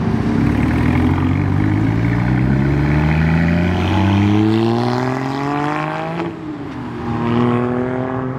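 A vehicle engine accelerating hard, its pitch climbing steadily for about six seconds. Then it drops as it shifts up and climbs again.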